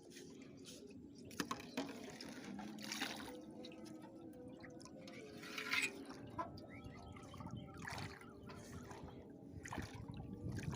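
Water splashing and dripping in short, irregular splashes, with the loudest splash about six seconds in.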